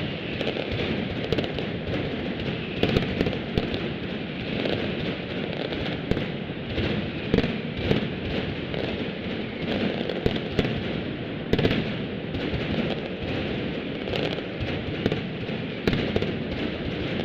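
Mascletà: a daytime barrage of ground-level firecrackers (masclets) going off in a dense, unbroken crackle, with louder bangs standing out every second or so.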